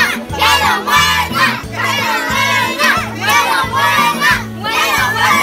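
A group of children shouting and cheering together, over music with a repeating bass line.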